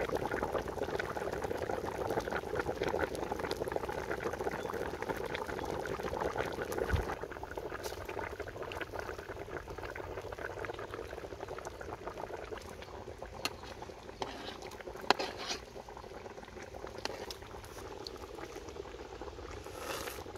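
A large pot of Cambodian fish stew (koh trei) boiling hard over a wood fire, a dense steady bubbling. It is loudest for the first several seconds and softer after that, with a few sharp clicks about two-thirds of the way through.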